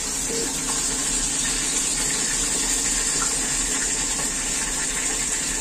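Hot oil sizzling steadily around a very large fish deep-frying in a wok.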